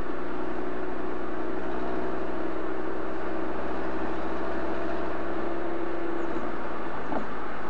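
Exhaust of a stock 2018 Audi TT RS with its 2.5-litre turbocharged five-cylinder, sport exhaust valves closed in Comfort mode, at a steady cruise with an even drone. The note changes about six seconds in.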